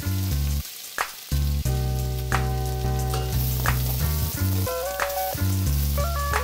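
Diced white onion sizzling and frying in hot olive oil, stirred with a spatula. Background music with sustained chords and a sharp hit about every second and a half plays over it.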